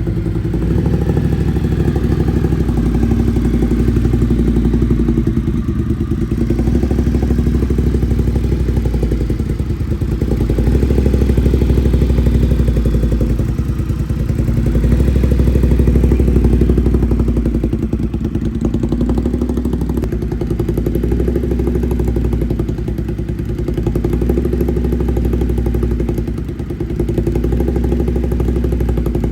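Ducati Monster's V-twin engine running through an aftermarket SC Project exhaust, its sound mostly low, with its level rising and falling gently a few times.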